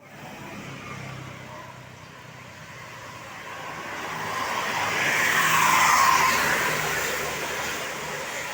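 A road vehicle passing by: tyre and engine noise swelling to its loudest about six seconds in, then fading away.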